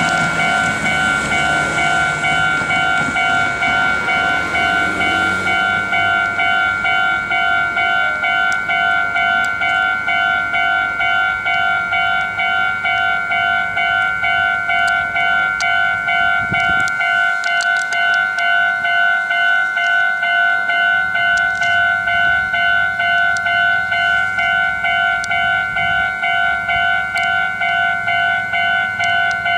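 Japanese level-crossing warning bell ringing in an even, continuous rhythm of about two rings a second, with the rumble of a passing train fading away over the first few seconds.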